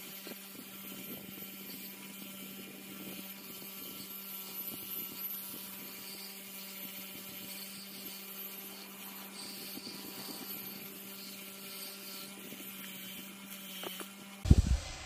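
Bench grinder with a wire wheel running with a steady hum while a steel rifle bolt is held against the spinning brush, scratching rust off. Near the end the hum stops and a few loud knocks follow.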